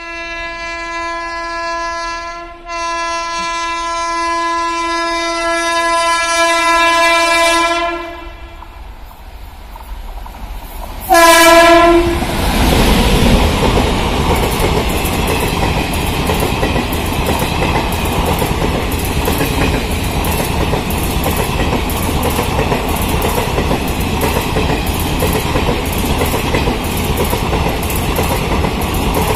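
WAP-7 electric locomotive's air horn sounding a long blast, broken briefly near the start, then a short loud blast about eleven seconds in. After that comes the loud rush and regular clickety-clack of the train's coaches passing close by over the rail joints.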